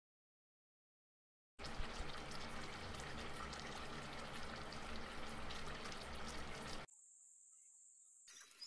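Pot of mung beans at a rolling boil, the water bubbling and churning steadily. It starts suddenly after about a second and a half of silence and cuts off about seven seconds in.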